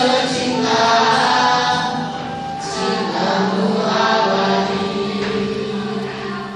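A mixed group of teenage boys and girls singing a song in Sundanese together, holding long notes, growing quieter near the end.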